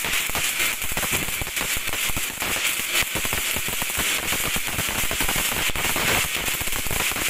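Ground fountain firework spraying sparks: a steady hissing crackle of many fine pops that keeps up without a break.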